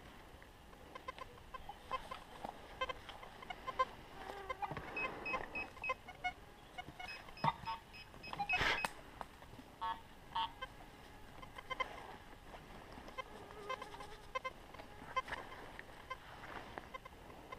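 Domestic fowl clucking, with short calls repeated throughout and a louder sudden noise about nine seconds in.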